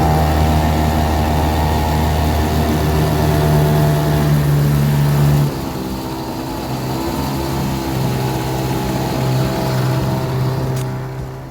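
Small Chinese-made outboard motor on a jon boat running steadily, then slowing about five and a half seconds in, dropping a little in pitch and loudness, and running on at the lower speed.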